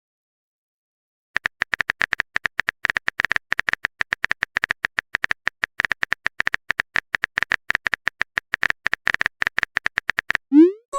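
Typing sound effect of a chat app: a quick, uneven run of short pitched ticks, like keys tapped on a phone, starting about a second in and stopping shortly before the end.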